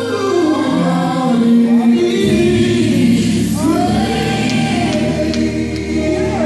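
Gospel song playing: a choir singing with instrumental backing, a deeper bass joining about two seconds in.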